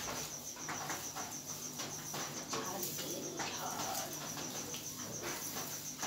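A broom sweeping a floor in repeated short brushing strokes, over a cricket chirping in a steady, evenly pulsing high trill.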